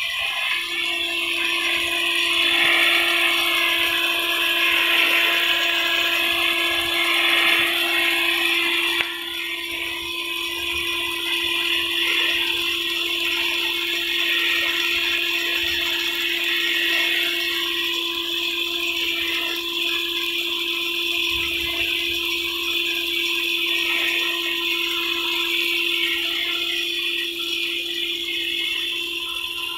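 Big-gun rain-gun sprinkler throwing its jet over a crop, a continuous hiss of spraying water with a steady hum underneath and the ratcheting clack of its swing-arm drive as the gun turns. The sound drops in level about nine seconds in.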